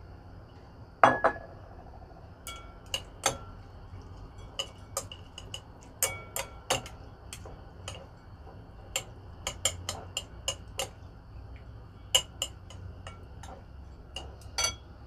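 Chopsticks clicking against a glass bowl while stirring soaked vermicelli: irregular sharp clicks with a short glassy ring, the loudest about a second in.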